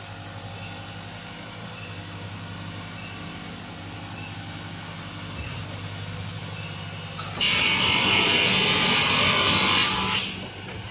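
A CNC dual-head Low-E coating deletion machine hums steadily. About seven seconds in, its abrasive head starts grinding the Low-E coating off the glass with a sudden loud, high rasp, which dips briefly near the end and then resumes.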